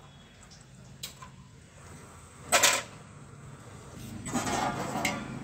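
A heavy iron griddle (tawa) clanking down onto a metal gas-burner stand about two and a half seconds in, followed near the end by about a second of rough metal-on-metal scraping as it is shifted.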